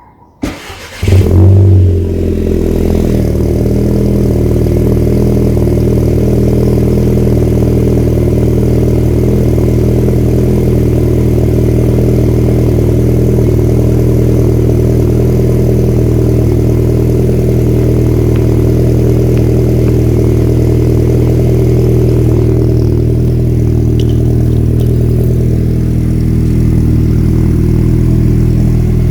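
Car engine starting: it fires, flares loud for about a second, then settles into a steady idle. In a cold-start compilation of modified cars, this is a cold start with a raised idle.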